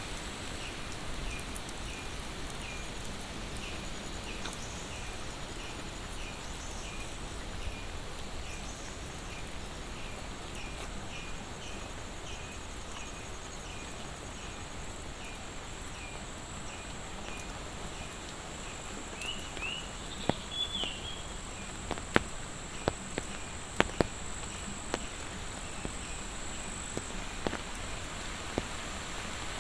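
Monsoon rain falling steadily, with a continuous high insect drone over it and a short chirp repeating about twice a second through the first two-thirds. A brief rising call comes about twenty seconds in, and a few sharp taps follow in the last third.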